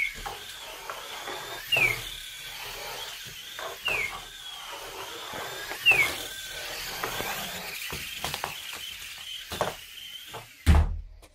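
Parrot Jumping Sumo robot's small electric drive motors whining as it drives, the pitch wavering with speed. Four short falling squeaks come about two seconds apart, among light knocks, and a loud thump comes near the end before the sound cuts off.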